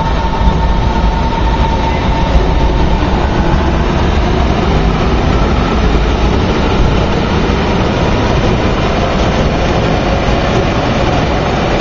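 Electric locomotive-hauled train moving past the platform: a loud, steady rumble of wheels and running gear.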